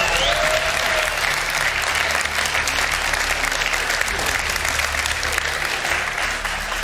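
Studio audience applauding, a dense, even clatter of many hands clapping that eases a little near the end.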